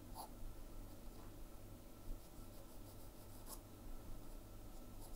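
Faint scratching of a graphite pencil drawing on paper, in light, irregular strokes.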